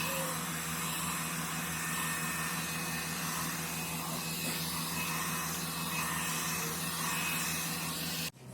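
Hot-air brush (hair dryer comb) blowing steadily, a whooshing hiss over a low motor hum, switched off abruptly near the end.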